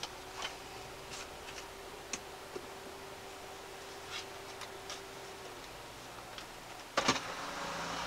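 Faint, irregular ticks and clicks inside a stationary car with a faint steady hum, then one sharp clack about seven seconds in, followed by a rise in steady road and engine noise.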